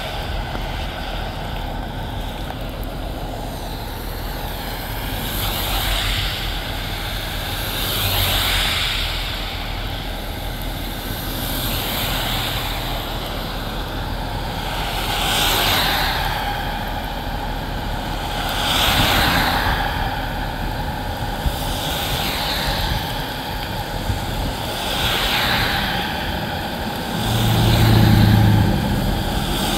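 Road traffic passing on a wet road: a vehicle goes by every few seconds, each swelling and fading over a steady hiss. A deeper engine sound comes near the end.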